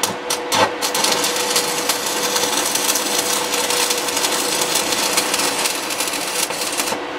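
DC stick (MMA) welding arc from an inverter welder: a few sputtering crackles as the electrode strikes, then a steady crackle and hiss that cuts off shortly before the end.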